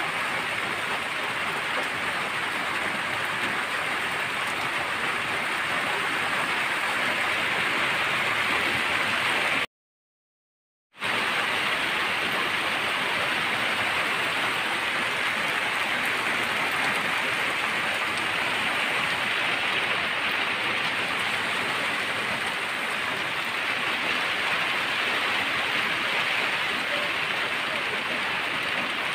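Steady rain falling, an even hiss that cuts out completely for about a second roughly a third of the way in.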